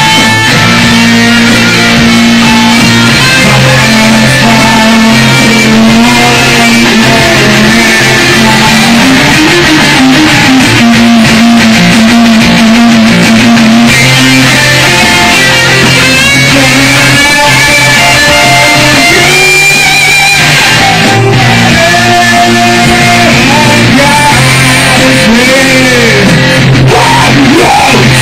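Loud live rock music: an electric guitar playing sustained notes, with a voice singing into a microphone near the end.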